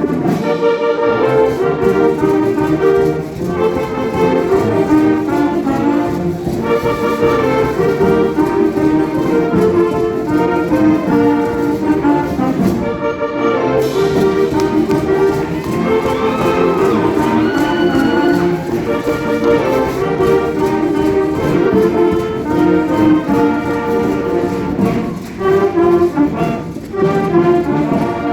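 Concert wind band playing a piece, with brass prominent over sustained ensemble chords, heard in a large hall.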